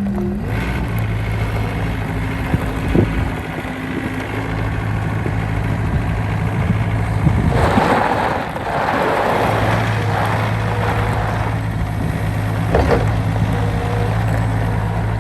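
An engine running steadily, its note dropping to a lower steady pitch about half a second in, with a rush of noise around the middle.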